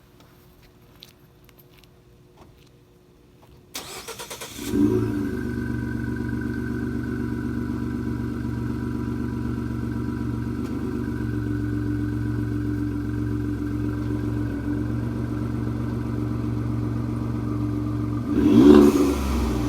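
Ford 3.5 EcoBoost twin-turbo V6, its exhaust running without the resonator but with the factory muffler, is cranked by the starter about four seconds in. It catches with a flare of revs, then idles steadily. Near the end comes one quick rev blip that falls back to idle.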